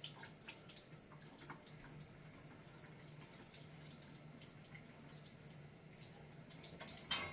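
Water dripping and trickling in a kitchen sink as celery is cleaned, with scattered small ticks and a low steady hum underneath. A louder clink near the end.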